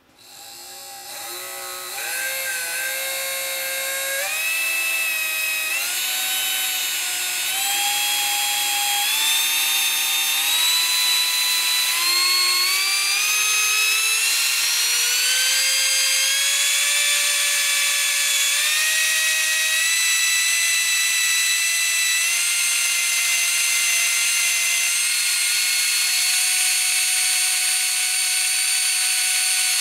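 Cordless drill's brushed DC motor spinning up on pulsed DC from a variac, being overvolted. Its loud whine climbs in pitch in a series of steps for the first two-thirds, then holds high and steady.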